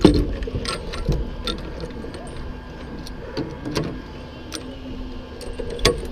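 Scattered light clinks and knocks of a lineman's metal climbing gear, chains and hardware against a wooden pole crossarm, with a louder knock near the end, over a low steady rumble.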